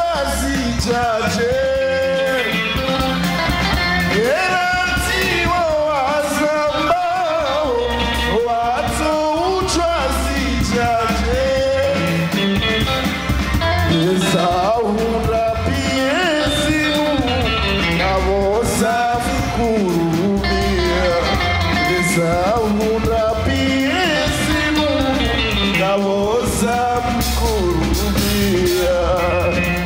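Live Comorian twarab music: a male lead singer singing through a microphone over band accompaniment of electric guitar, keyboard and drums, with a steady bass and beat.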